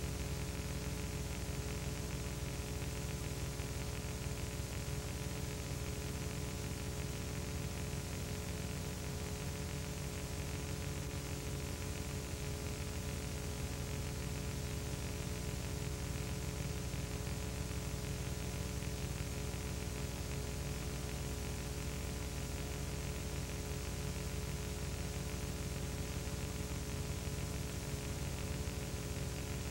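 Steady hiss with a low electrical hum and its overtones, unchanging throughout: background noise on the soundtrack of a silent home-movie transfer.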